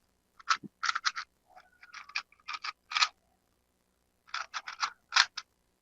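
Rubik's cube being turned quickly: runs of plastic clicks and scrapes as its layers rotate, with a break of about a second partway through.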